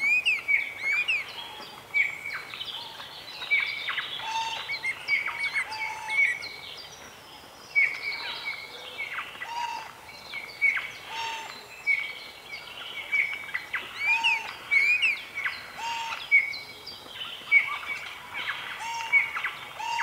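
Chorus of songbirds: many short chirps and quick whistled calls from several birds at once, with a lower whistled note recurring every second or two.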